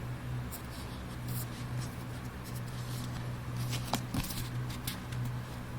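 Cardboard and paper CD packaging being handled: soft rustling and scraping with a few light clicks, the sharpest about four seconds in, over a steady low hum.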